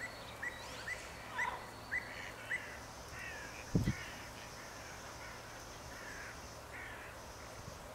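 Pied avocets calling: a run of short, rising notes about two a second, then softer chattering calls. A single low thump about four seconds in.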